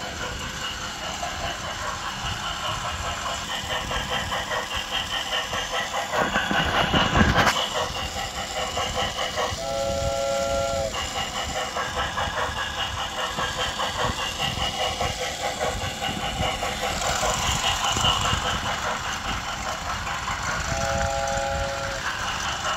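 Toy steam train running on plastic track, its motor and wheels making a fast, continuous rhythmic clatter. It sounds a chord-like whistle effect twice, each about a second long: once about ten seconds in and once near the end. A louder scuffing noise comes about six to seven seconds in.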